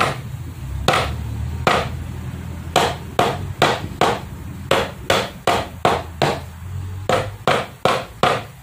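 A chopping knife cutting through hair in a series of sharp chops, about fifteen strikes at an uneven pace that quickens in the second half.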